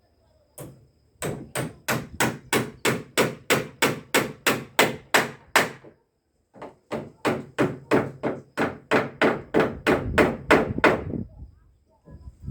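Hammer blows on wood, as in driving nails: two runs of steady strikes, three to four a second, broken by a short pause about six seconds in.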